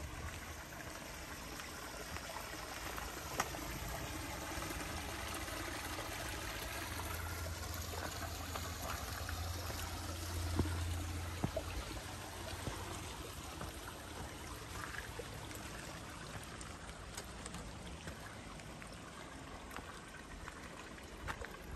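Small mountain creek running over rocks, a steady rushing babble, with a low hum that swells in the middle and fades again.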